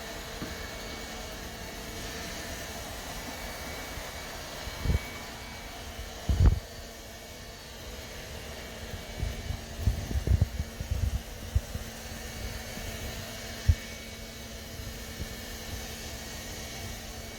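ILIFE A12 Pro robot vacuum running with a steady whirring hum. It is broken by a few short, low thumps, two before the middle, a cluster around the middle and one later.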